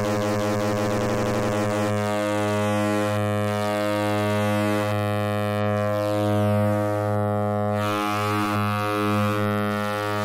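Noise Engineering Virt Iter Legio oscillator on its SawX algorithm, phase-modulated by a Beehive (a Mutable Plaits clone), sounding a steady, low synth drone rich in overtones. A dense, shifting timbre settles into a steady pitched tone about two seconds in, with slow swells in level.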